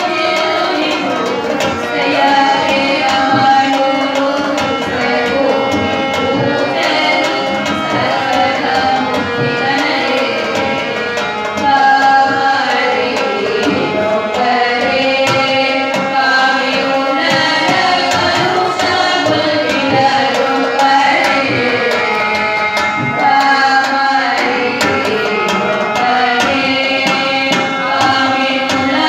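Devotional song sung by a group through microphones, a man leading and women singing along from songbooks, accompanied by an electronic keyboard and a hand drum playing tabla-like strokes.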